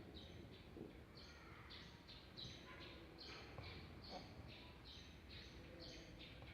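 Near silence, with faint high chirps repeating about three times a second.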